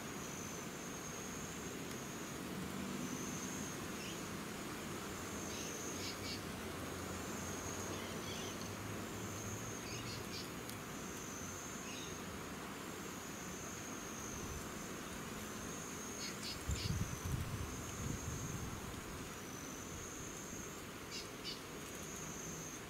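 An insect trilling high and steady in repeated stretches of a second or two, with a few short, high bird chips now and then. About three-quarters of the way through, a low rumble of wind on the microphone is the loudest sound.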